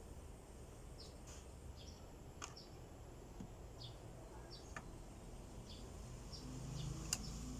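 Birds chirping faintly outdoors, short high chirps repeating every half second or so over low background rumble, with a few sharp ticks, the sharpest about seven seconds in.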